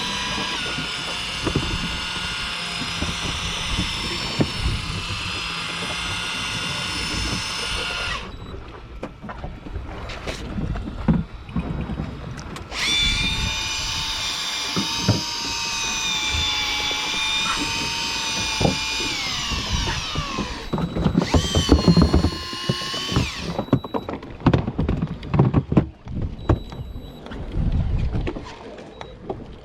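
Electric fishing reel's motor whining as it winds in line: one run of about eight seconds, then a longer run whose pitch drops as it slows near the end, then a short burst. Scattered knocks in between.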